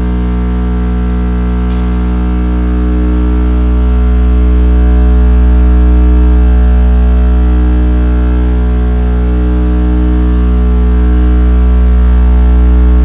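Steady low pure tone at about 61 Hz from a loudspeaker, held on an eigenmode of a tiled reverberation chamber so that it builds a standing wave, with a ladder of fainter overtones above it. The level swells slowly, dips about eight seconds in and rises again near the end.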